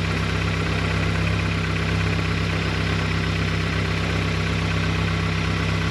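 Engine-swapped Honda Civic idling steadily, heard from under the car by the exhaust. The exhaust's V-band flange shows no bubbles under soapy water, so it is no longer leaking.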